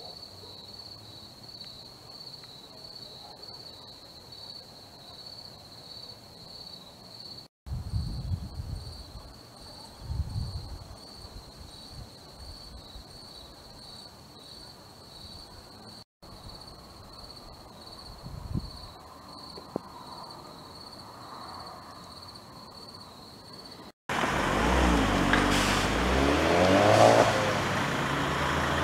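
A steady, high, evenly pulsing chirp over a faint hum, with a few low thumps. About four seconds from the end it gives way to a much louder heavy vehicle engine running close by amid a rushing noise.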